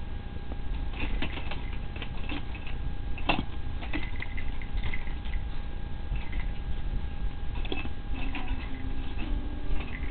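Irregular soft clicks and scuffles of a Chihuahua and a cat play-fighting on carpet, paws and claws scrabbling, with one sharper knock about three seconds in. A faint steady hum runs underneath.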